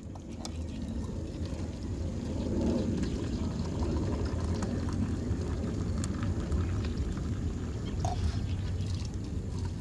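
Coffee pouring from a collapsible kettle into stainless steel mugs, over a steady low rumble.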